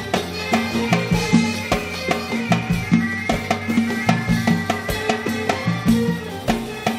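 Live Arab orchestra playing an instrumental interlude of a Gulf song: strings over a steady beat of drums and percussion, with no singing.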